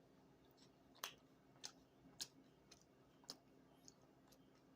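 Near silence with a faint steady hum, broken by faint, sharp clicks roughly every half second.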